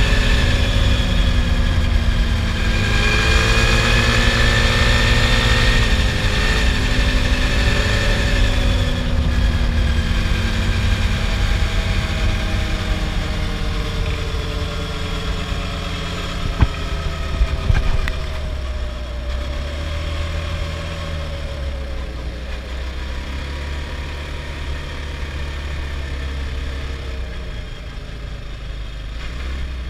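Adly Hurricane 320 quad's engine running under way, its pitch rising and falling with the throttle in the first several seconds, then steadier and a little quieter. A couple of sharp knocks a little past halfway.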